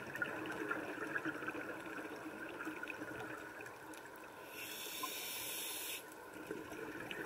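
A diver's breath through a scuba regulator, a steady hiss of about a second and a half starting a little past halfway, over a constant underwater crackle.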